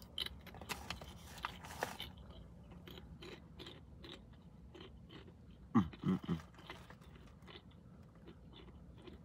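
Crunchy nacho tortilla chips being bitten and chewed: a run of sharp crunches, densest in the first two seconds, then slower, lighter chewing, with a brief louder low sound about six seconds in.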